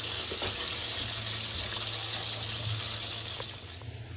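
Chicken pieces deep-frying in a wok of hot oil: a steady sizzling hiss with light crackles, cutting off shortly before the end.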